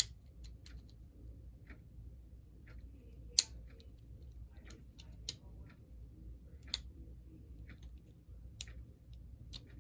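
Scattered small clicks and taps of a model locomotive's front truck being taken apart by hand, with small parts and a tool knocking together. The sharpest click comes about three and a half seconds in.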